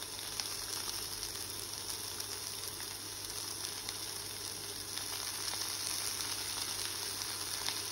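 Mushrooms frying in hot rapeseed oil in a pan: a steady sizzle as torn oyster mushrooms are dropped in by hand.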